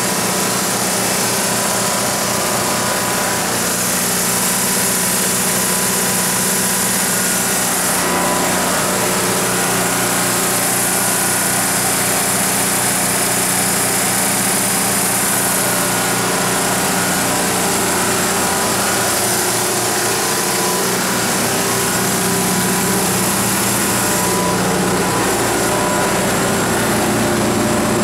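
Detroit Diesel 6V-92GDTA two-stroke V6 diesel engine of a 300 kW standby generator set running steadily under heavy load, about 274 kW on its meter.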